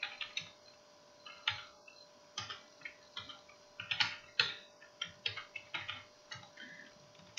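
Typing on a computer keyboard: irregular runs of key clicks, over a faint steady hum.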